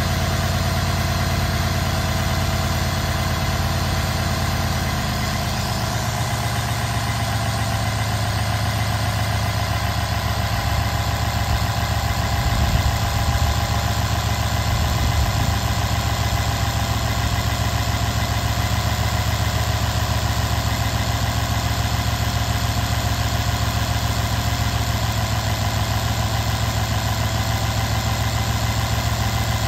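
Mercedes-Benz M278 4.7-litre twin-turbo V8 idling steadily with the bonnet open, still on its cold-start warm-up. The idle note settles slightly lower about six seconds in.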